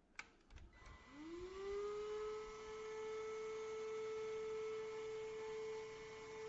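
K7 Pro cordless handheld vacuum cleaner switched on with a click; its motor spins up over about half a second and settles into a steady whine.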